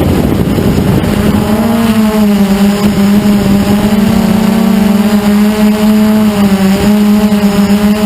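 Blade 350 QX2 quadcopter's motors and propellers in flight: a rushing, wind-like noise for about the first second and a half, then a steady buzzing hum whose pitch wavers slightly as the motors adjust.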